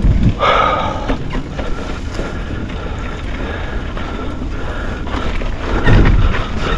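Wind buffeting the microphone over the rumble of a mountain bike being ridden along a trail, with louder swells about half a second in and again about six seconds in.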